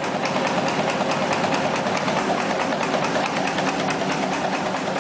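A machine running steadily, a dense whirring clatter with rapid, even ticking.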